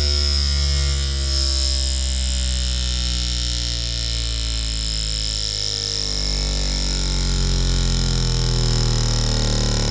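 15-inch Adire Audio Tumult MK4 subwoofer playing a slowly falling sine sweep from about 75 Hz toward 20 Hz, with a harsh metallic buzzing rattle over the tone. The buzz is the motor's broken shorting ring, come loose from its adhesive and rattling inside the motor in the changing magnetic field.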